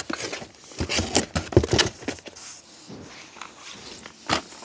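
Plastic VHS tape cases clacking and sliding against each other as they are handled and pulled from a cardboard box: a flurry of sharp knocks about a second in, quieter rustling, then another knock near the end.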